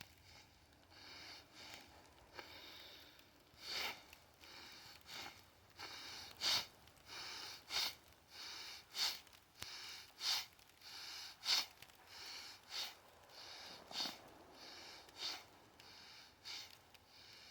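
A person's sharp, hissy breaths through the nose, repeating evenly about once every second and a quarter from about four seconds in, in time with squat reps: a lifter's forceful nasal breathing in the freezing cold.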